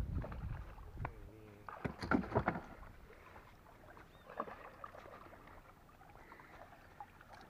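Scattered splashes and sloshing of river water as a hooked golden dorado (dourado) thrashes at the surface while being played on a rod.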